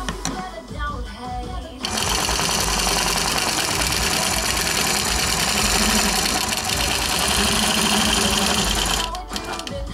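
Longarm quilting machine stitching along an acrylic ruler template. It runs steadily at speed from about two seconds in and slows to a stop near the end.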